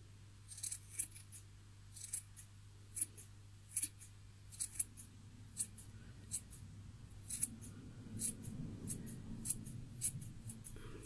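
Scissors snipping the yarn ends of a pom-pom to trim it, a string of short irregular snips about two a second.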